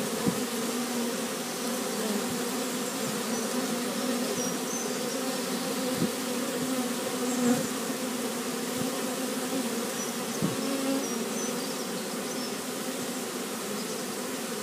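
A mass of honeybees humming around an open hive as brood frames are lifted out: a steady, low, even drone, with a couple of faint knocks.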